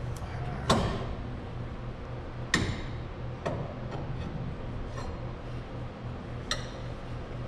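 Sharp metallic clinks, about five spaced a second or more apart, from steel winding bars being set into and levered in the winding cone of a garage door torsion spring as it is wound up turn by turn.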